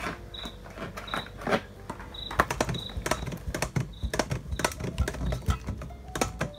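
Block of cheese being grated by hand on a flat metal grater over a stainless steel bowl: a quick, irregular run of scraping strokes and clicks.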